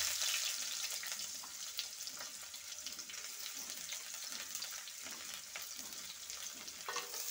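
Sliced onions sizzling in hot mustard oil in a kadai: a loud sizzle that starts as they hit the oil and eases slightly, with scattered crackles.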